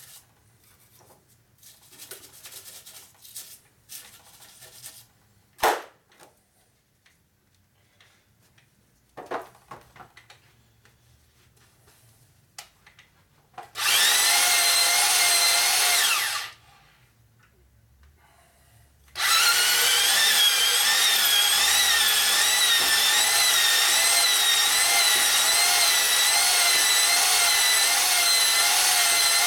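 A few light clicks and knocks, then a power-driven cylinder hone grinds inside a cast-iron bore of a Ford Model A/B flathead four-cylinder block: a short run of about three seconds, a pause, then steady running for the last ten seconds, its whine wavering up and down in pitch about once a second.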